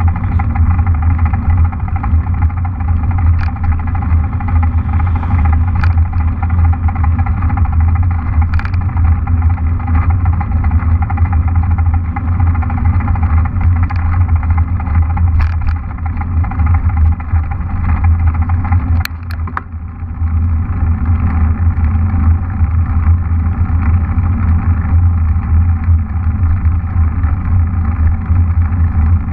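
Steady rumble and rushing noise of a mountain bike rolling along a tarmac road, as heard from the rider's camera, with a few sharp clicks. One louder click comes about two-thirds of the way in, as the rumble briefly drops.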